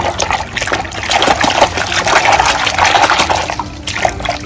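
Muddy, soapy water sloshing and splashing in a basin as hands churn and scrub a plastic toy in it, a continuous busy splashing with a brief lull near the end.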